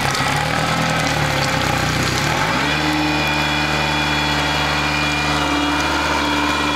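Yamaha 90 hp four-stroke outboard engine running out of the water on a garden-hose flush attachment. Its revs shift at first, pick up about two and a half seconds in, then hold steady.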